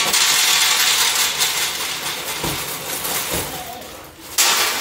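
Dry Chex cereal squares pouring out of the bag into a metal pan: a dense rattling rush that starts loudly and tapers off, then a second loud pour begins near the end.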